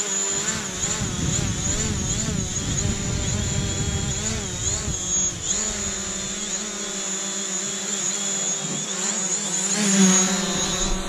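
DJI Mavic quadcopter drone hovering, its spinning propellers giving a whine of several tones that waver in pitch as it holds position. It grows louder about ten seconds in as it swoops close past the camera.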